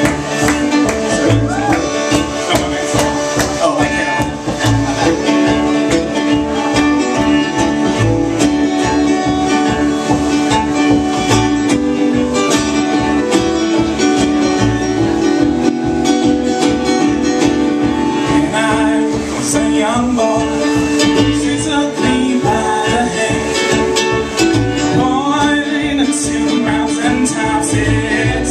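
Live folk band playing: strummed acoustic guitar and mandolin over bowed cello and accordion, with singing in places.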